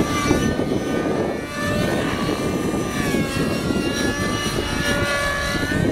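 Radio-controlled 3D aerobatic helicopter flying manoeuvres. Its high whine of engine and rotor blades keeps gliding up and down in pitch as it loads and unloads the rotor.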